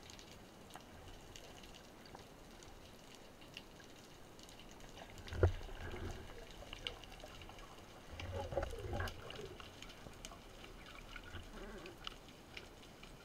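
Underwater ambience heard through a speargun-mounted camera's housing: scattered faint clicks and crackles, a dull knock about five seconds in, and a short stretch of muffled bubbling and rumble around eight to nine seconds.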